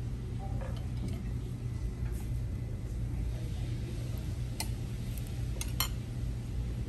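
Steady low hum of a restaurant dining room, with a few sharp clicks of tableware in the second half.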